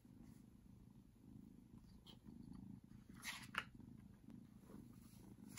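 A cat purring faintly and steadily, with the rustle and flap of a stiff book page being turned about three and a half seconds in.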